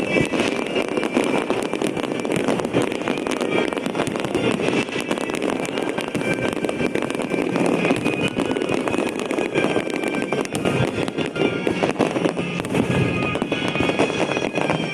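Fireworks display: a dense, continuous crackle of many shells bursting and popping at once, with music playing over it.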